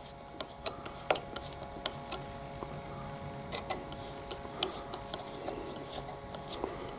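Light, irregular clicks and taps of a hand tool working at a motorcycle brake lever's pivot bolt as it is being loosened, over a faint steady hum.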